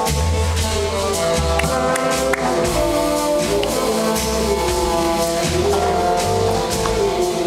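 Live band music: a horn section of saxophone, trumpet and trombone holds notes over bass and drums with cymbals.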